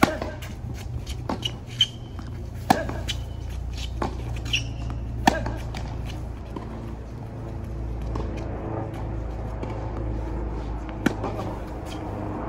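Tennis groundstroke rally: balls struck by rackets and bouncing on a hard court, a loud racket hit right at the start, then a string of sharp pops over the next five seconds, a gap, and one more hit about eleven seconds in, over a steady low hum.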